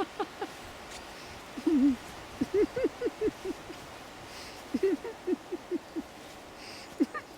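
A person laughing in short bouts of "ha-ha-ha" syllables, with brief pauses between the bouts.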